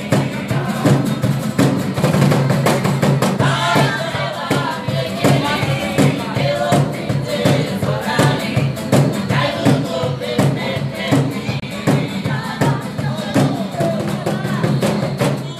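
Several acoustic guitars strummed together in a fast, even rhythm, with a group of voices singing along in chorus.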